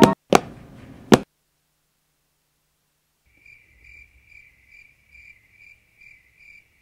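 Cricket chirping in a steady rhythm, a little over two chirps a second, starting about three seconds in after a pause. It is preceded by a few sharp knocks in the first second.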